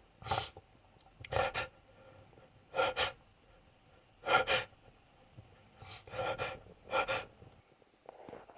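A man's sharp, voiced gasping in-breaths as a sneeze builds up, about six of them spaced roughly a second apart, several catching twice. This is the build-up of an allergy sneeze brought on by sniffing pollen from flowers; the sneeze itself has not yet come.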